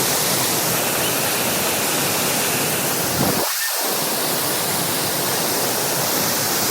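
Waterfall rushing, a loud steady wash of falling water. The low rumble drops out briefly about halfway through.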